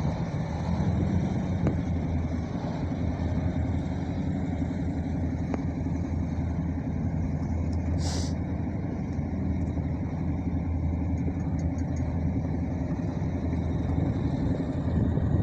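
Motor vehicle engine running steadily, a low even drone. A brief hiss comes about halfway through.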